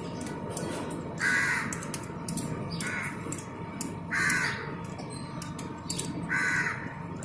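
A bird cawing four times, a second or two apart, over faint scattered metallic clicks from a spanner on the engine's timing chain tensioner bolts.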